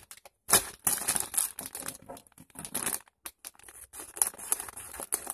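Plastic candy bag crinkling in irregular bursts as it is handled and torn open.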